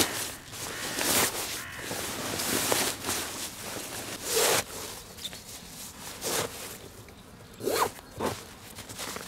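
Nylon shell of a Grüezi wool-and-down winter sleeping bag rustling and swishing as it is stuffed by hand into its stuff sack, in a series of short pushes.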